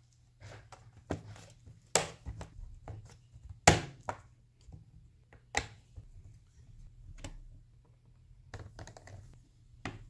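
Plastic bottom cover of a Dell G15 laptop being laid on and pressed down into place: a string of sharp clicks and knocks with smaller ticks between, the loudest a little under four seconds in.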